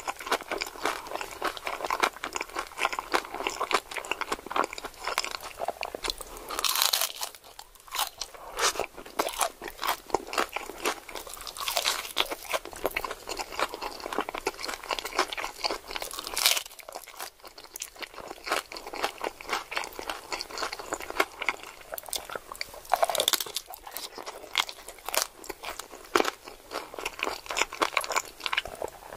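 Close-miked crunching and chewing of a crunchy hard-shell taco: a steady crackle of chewing with a few louder crunches spread through.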